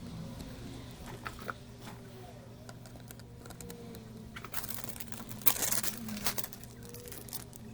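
Small clicks and crinkling handling noises, thickest and loudest just past the middle, over a faint steady electrical hum.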